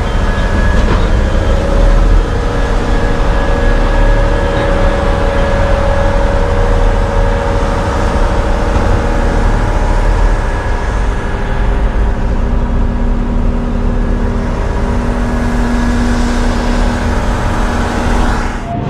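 Heavy diesel engine running steadily, a low rumble with several steady tones over it, cutting off suddenly near the end.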